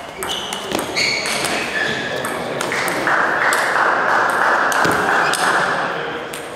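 Table tennis ball clicks and high squeaks of shoes on the court floor as a rally ends, then a louder, even rushing noise for about three seconds.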